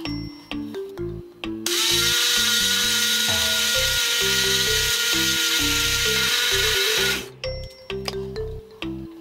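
Small electric countertop blender running for about five seconds, puréeing chopped leafy greens: its motor starts about two seconds in with a steady high whine and stops suddenly about seven seconds in. Background music plays throughout.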